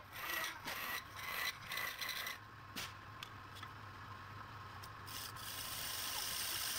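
Wood being worked on a lathe: a tool rubbing and scraping against the spinning wood, in irregular strokes over the first couple of seconds and then more steadily, over a steady low hum.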